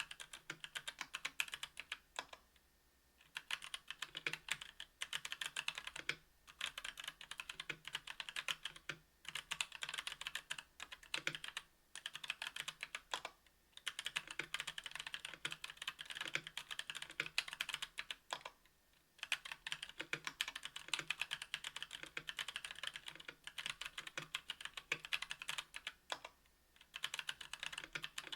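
Mechanical keyboard typing: a KBDfans Tofu 60% aluminium keyboard with Domikey x Kailh Cyberpunk Pink Purple 62g tactile switches and GMK keycaps, keys clacking in fast runs broken by short pauses.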